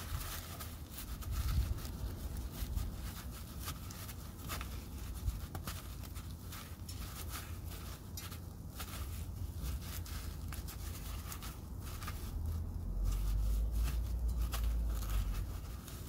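Cloth rag rubbing and scraping over a grimy gearbox-mounted reverse light switch, a run of small irregular scuffs, with a low rumble that grows louder a few seconds before the end.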